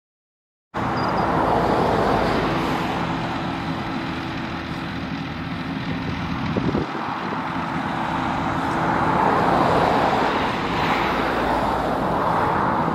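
Claas Jaguar 860 self-propelled forage harvester running under load while chopping maize: a steady machine drone with a constant hum. It starts abruptly about a second in.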